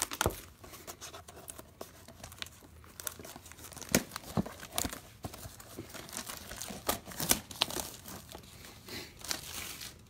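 A sealed trading-card box being torn open by hand: irregular crinkling and ripping of its wrapping and cardboard top, in short crackles scattered throughout.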